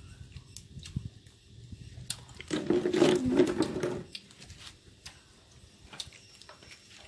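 A person eating boiled buffalo skin: soft chewing with scattered light clicks of chopsticks against dishes. About two and a half seconds in comes a louder, wavering voice-like sound lasting over a second.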